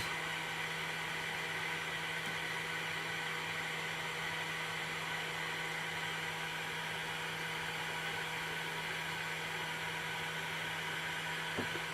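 Hot-air rework gun blowing steadily on low air at 300 °C: an even fan hiss with a constant low hum.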